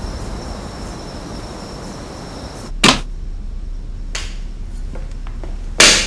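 Soundtrack music tailing off and cut short by a sharp thump, then about three seconds later another loud knock as a front door is opened.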